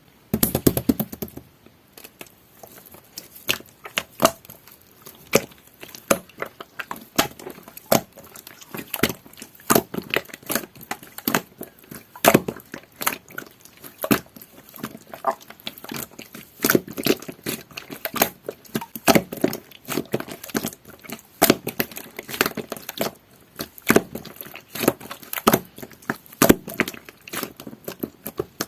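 Jelly-textured slime being squished and worked, giving a fast, irregular run of sharp clicks and pops, with a fuller squelch right at the start.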